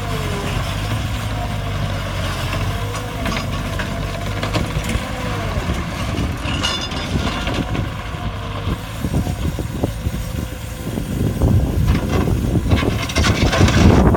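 Kubota turbo diesel of a Bobcat T190 track loader running steadily, with a wavering whine over the engine note. In the last few seconds it gets louder and more clattery.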